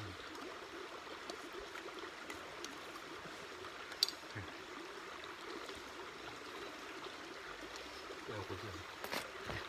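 Steady rushing background noise, with one sharp metallic clink about four seconds in: a spoon tapping a stainless steel bowl.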